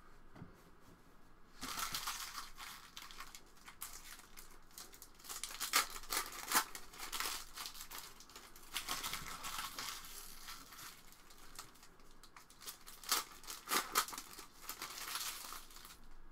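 Foil wrappers of NBA Hoops hobby trading-card packs crinkling and tearing as they are ripped open by hand. The crinkling starts about a second and a half in and goes on in uneven bursts of sharp crackles.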